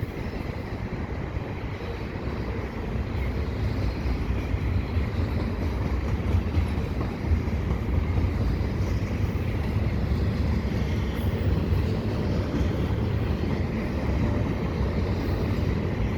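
Double-stack container freight train rolling past at speed: a steady rumble of steel wheels on rail that grows a little louder a few seconds in.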